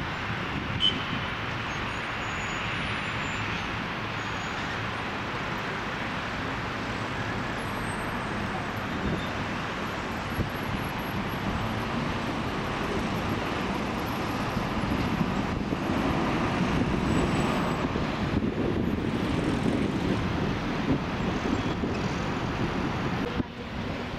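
Steady road and traffic noise, an even rushing hum that grows a little louder past the middle and dips briefly near the end.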